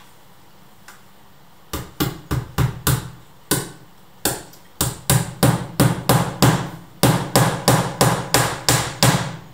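Hammer blows on the hinge side of a door, near the top: a long series of sharp strikes, about three a second in short runs with brief pauses, starting about two seconds in.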